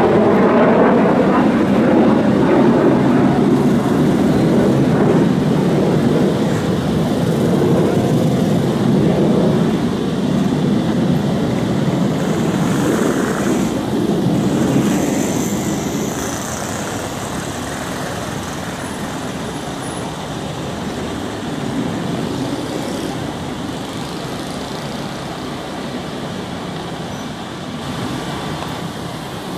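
Jet engine rumble from an Airbus A330 MRTT tanker and its escorting Dassault Rafale fighters flying low overhead. The sound is steady at first and grows slowly fainter over the second half as the formation flies away.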